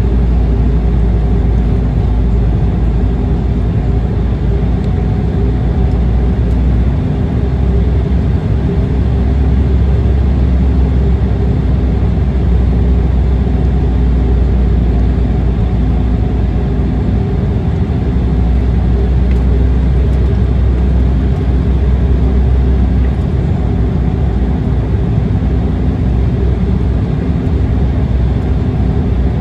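Cabin noise inside an Embraer E190 airliner on approach: a steady low rumble of airflow and its two GE CF34-10E turbofans, with a few faint steady engine tones above it.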